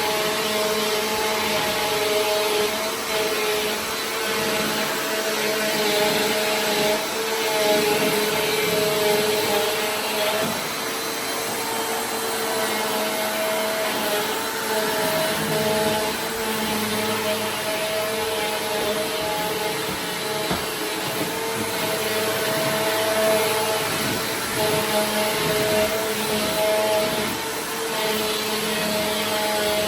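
Household vacuum cleaner running continuously, a steady motor whine over a rush of air, its tone shifting about a third of the way through.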